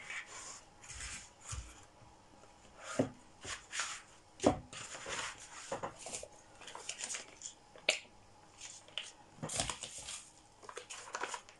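Handling noises as thin lavash sheets and soft plastic sauce pouches are moved and squeezed on a table: irregular rustling and crinkling with scattered short taps and clicks.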